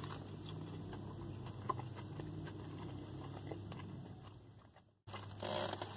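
A bite taken into a beef burger and the mouthful chewed, faint, with a few soft mouth clicks over a low steady hum. The sound cuts out for a moment near the end.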